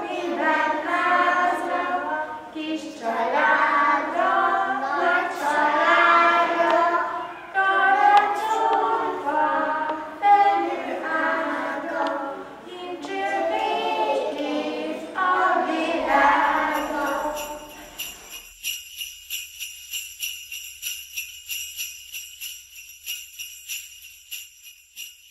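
A group of young children singing a Romanian Christmas carol (colind) unaccompanied. About sixteen seconds in, the singing gives way to jingle bells ringing in a steady, even shaking rhythm.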